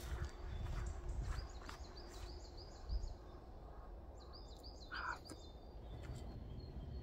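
A small songbird singing quick runs of short, high, repeated notes, about six a second, several times over, with a brief louder, lower call about five seconds in. Low rumble and a few scattered clicks lie underneath.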